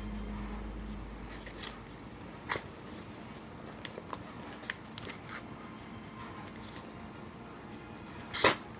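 Plastic mailing envelope crackling and crinkling in the hands as it is pulled open, with scattered small clicks and one loud tearing burst near the end.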